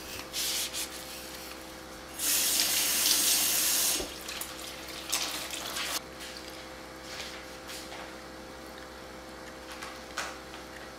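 A kitchen tap runs in a hard stream for about two seconds, starting about two seconds in and shutting off abruptly. Shorter, softer spells of running water come and go around it.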